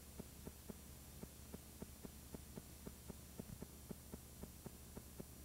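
Blank stretch of videotape playing back: near silence with a faint steady hum and faint, regular ticks about four a second.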